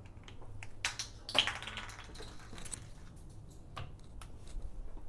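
Marker tapping and scraping on a whiteboard while writing: a string of short clicks, with a brief scratchy stretch about a second and a half in.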